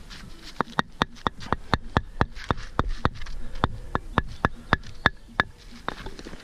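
A hand tool tapping as concrete blocks are laid: a quick, even run of sharp knocks, about four a second, several with a short metallic ring. The tapping stops about a second before the end.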